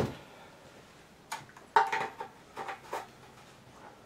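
A single knock as the gas can is set down, then a few light clicks and clinks about a second to three seconds in from handling around the pressure washer's fuel tank.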